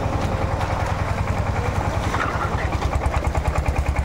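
An engine idling with a fast, even low chugging.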